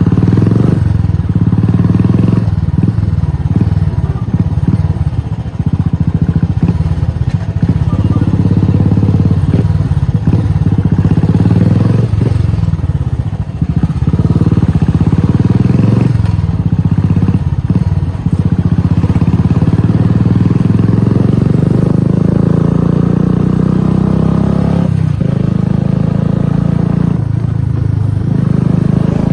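Royal Enfield Classic 350's single-cylinder engine running through an aftermarket exhaust, heard from the saddle on the move. The note is deep and steady, dipping briefly several times.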